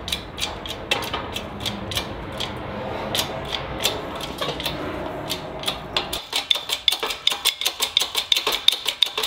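Wheel bearing being pressed into a Subaru STI rear knuckle on a 20-ton hydraulic shop press, giving a run of sharp metallic clicks. About six seconds in, a low rumble underneath stops and the clicks come faster and louder, about four or five a second.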